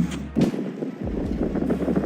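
Wind buffeting the microphone in a snowstorm, a rough steady rushing noise with a few short knocks.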